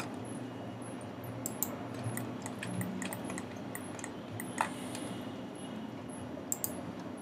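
Faint, scattered clicks of a computer mouse and keyboard, about a dozen, one a little louder about four and a half seconds in, over a steady low hum and hiss of room tone.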